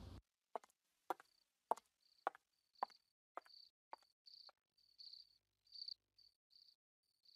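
Faint crickets chirping in short repeated trills, with a run of sharp footstep clicks about two a second that fades out after about four seconds.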